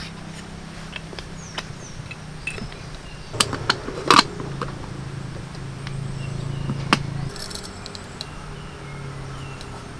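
Clicks and knocks of coffee gear being handled: a hand coffee grinder taken apart and the lid of a glass jar of coffee beans opened, the loudest knocks about three to four seconds in, then a spoon scooping beans with a sharp click about seven seconds in. A steady low hum runs underneath.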